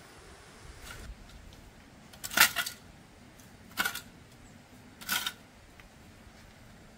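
Metal shovel blade scraping along the ground in three short strokes, each about a second and a half apart.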